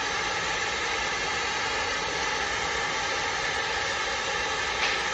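A machine running steadily: a loud, even motor noise with a hissing rush, and a brief sharp click near the end.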